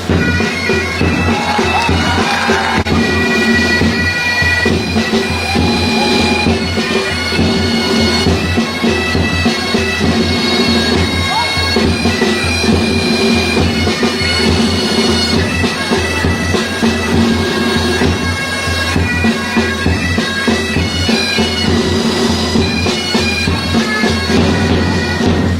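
Bagpipes playing a march tune, the melody notes changing over steady held drones.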